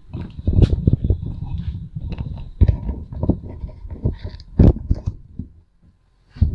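Irregular knocks and clunks of handling, over a low steady hum that stops about five and a half seconds in.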